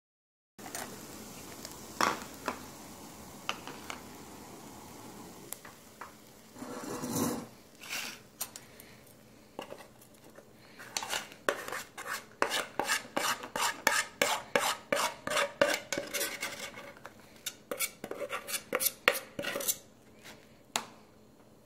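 A metal utensil scraping and clicking against an anodized aluminum nonstick camping pan while stirring scrambled eggs, quickening in the second half to about three strokes a second. A steady hiss runs under the first few seconds.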